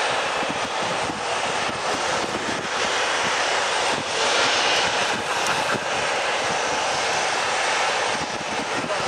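Boeing 737-800's CFM56-7B turbofan engines running at taxi power as the airliner rolls along the taxiway: a steady rushing jet noise with a thin high whine that drops away near the end.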